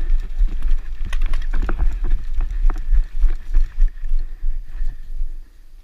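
A person running on grass, heard through a body-worn GoPro: heavy irregular thuds as each stride jolts the camera, with clicks and rattles of carried gear.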